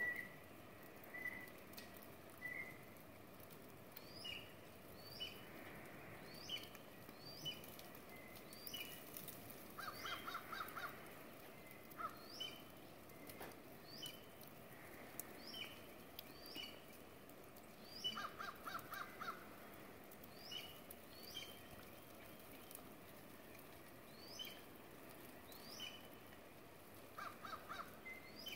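Faint bird calls: short high chirps repeated about once a second, and three times a quick run of harsher, lower calls.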